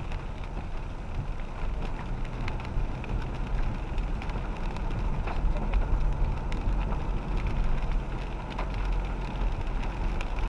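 A car driving slowly on a wet road, heard from inside the cabin: steady engine and road rumble with tyre hiss from the wet surface, and scattered faint ticks.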